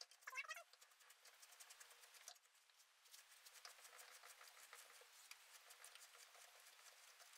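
Near silence: faint, rapid crackling ticks that thicken after about three seconds.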